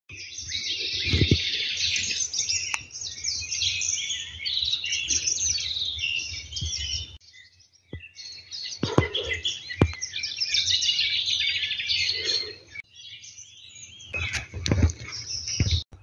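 Many small birds chirping and trilling together in a dense chorus, with a few dull low thumps underneath. The sound cuts out abruptly twice for about a second.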